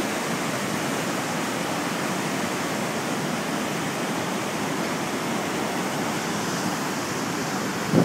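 Waterfall plunging into a rocky gorge: a steady, even rush of falling water.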